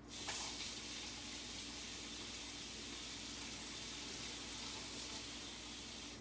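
Kitchen tap running hot water, a steady rush that starts suddenly and is shut off about six seconds later.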